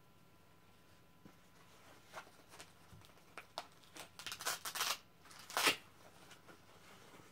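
Hands rustling small baby clothes while picking up the pink boots: a run of short soft rustles starting about two seconds in, the loudest about five and a half seconds in.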